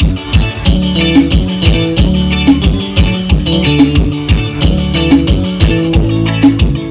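Live forró band playing an instrumental passage with a steady, driving dance beat.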